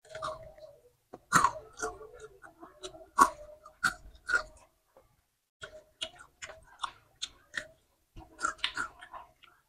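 A boy biting and chewing crispy batter-fried corn fritters and chicken feet close to a clip-on microphone: irregular crisp crunches, with a short lull about halfway.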